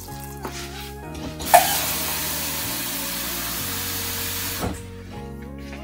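Water poured from a cup into an empty stainless steel Instant Pot inner pot: a splash about a second and a half in, then a steady rushing pour for about three seconds that stops fairly abruptly. Soft background music plays underneath.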